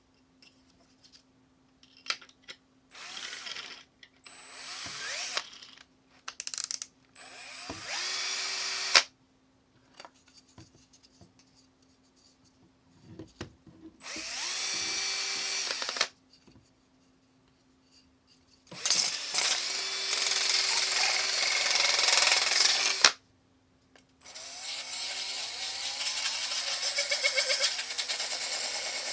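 Power drill spinning a 3D-printed sandpaper disc sander attachment, switched on and off in about six short runs. Each run starts with a rising whine as the drill spins up; the last few runs are the longest, several seconds each.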